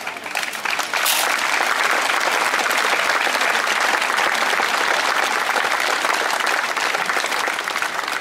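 A sharp knock about a second in, then a crowd applauding steadily, thinning toward the end.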